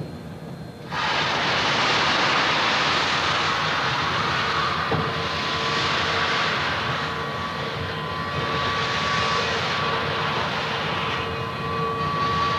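Steam locomotive releasing steam in a loud, steady hiss that starts about a second in, with faint steady tones underneath.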